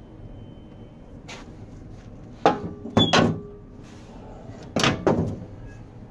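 Heavy metal door of a wood-fired bread oven being swung open and shut: a light knock about a second in, then loud metal clanks at about two and a half and three seconds and again near five seconds.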